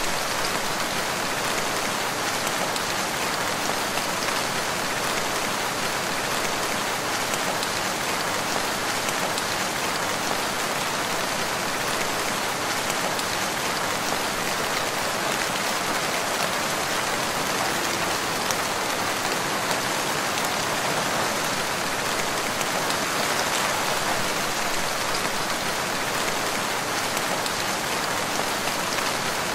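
Steady rain falling in a forest, an even hiss of many drops with fine individual drop taps through it.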